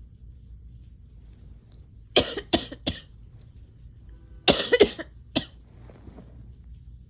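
A person coughing in two short fits of about three coughs each, the first about two seconds in and the second about four and a half seconds in.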